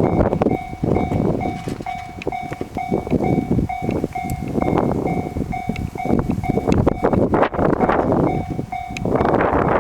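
Level-crossing warning bell ringing in a steady two-tone pattern about twice a second, stopping about nine seconds in, while a JR East E531-series electric train runs past with wheels clacking over the rail joints. Near the end the passing train's rumble becomes a steady rush.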